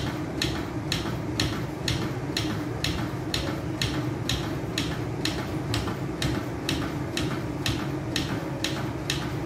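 Chest compressions on a CPR training manikin: a steady run of sharp plastic clicks, about four a second, from the manikin as its chest is pushed down and recoils.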